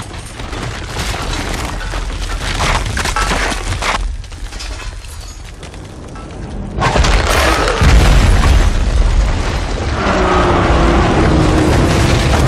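Movie action-scene soundtrack: deep rumbling and crashing debris, easing off around four seconds in, then a sudden loud boom about seven seconds in with heavy low rumble after it. Music with held tones comes in over the rumble near the end.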